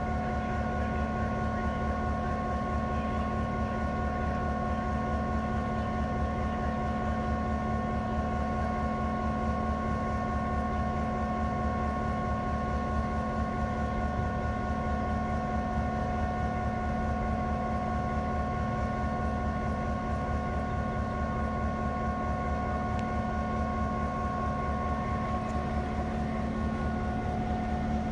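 EMD GP7 diesel-electric locomotive with its 16-cylinder 567 engine idling steadily: a constant low rumble with a steady whine on top.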